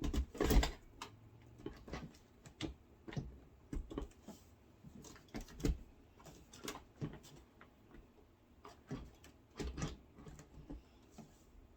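Irregular clicks and knocks of hard plastic parts being handled and fitted together, loudest in the first second.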